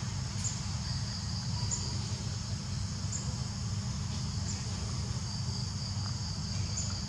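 Steady, high-pitched insect chorus with faint chirps recurring every second or so, over a steady low rumble.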